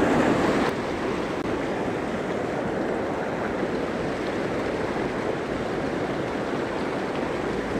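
Steady rush of a mountain stream's flowing water, which drops a little in level under a second in.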